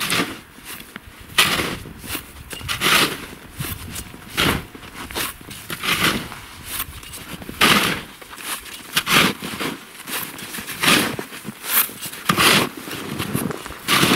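Snow being shovelled with a plastic NIX snow shovel, in short noisy strokes about every second and a half.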